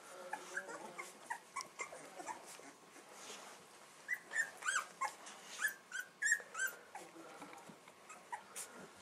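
Fifteen-day-old bullmastiff puppies whimpering and squeaking: a string of short, high squeals, busiest in the middle of the stretch.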